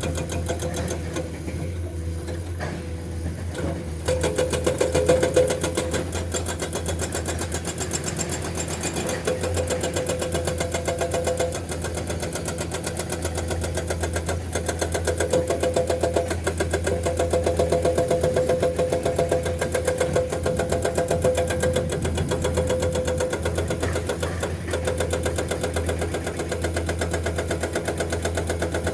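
Excavator diesel engine running under load while its hydraulic breaker hammers limestone rock, a rapid, steady rattle of blows that grows louder about four seconds in.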